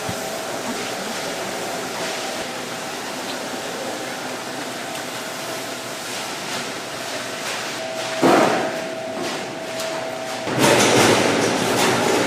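Food-processing plant machinery running steadily with a faint high hum. There is a sudden loud clatter about eight seconds in and a louder rattling rumble near the end.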